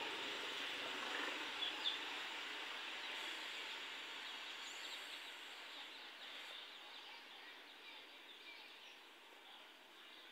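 Village outdoor ambience: a steady soft hiss that slowly grows fainter, with a few faint bird chirps about two seconds in.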